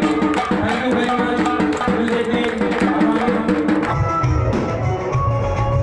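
Music: a drum-heavy song with a melody over fast drum strokes, changing about four seconds in to music with a strong pulsing bass beat.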